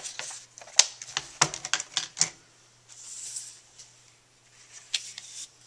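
Plastic paper trimmer clattering with a quick run of sharp clicks and knocks as it is handled and moved aside, followed by a short rustle of cardstock and paper being handled, and a few more light clicks near the end.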